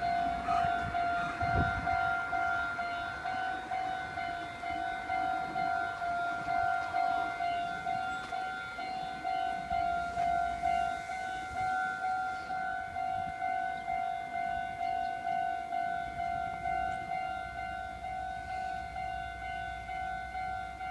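Japanese level-crossing warning bell ringing: an electronic ding repeating evenly, more than once a second, which signals that a train is approaching or passing. A brief low thump sounds about a second and a half in.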